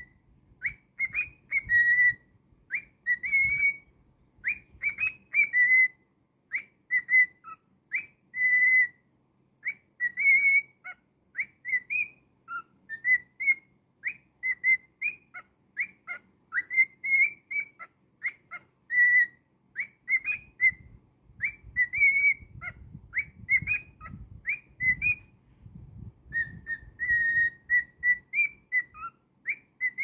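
Male cockatiel whistling a song: a long run of short, clear whistled notes and quick upward slurs, a few each second with brief pauses, stringing snatches of tunes together into a remix.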